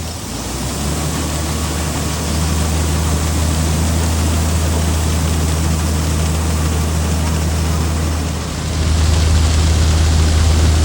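Heavy engine running with a steady low drone. The sound changes and gets louder about eight and a half seconds in.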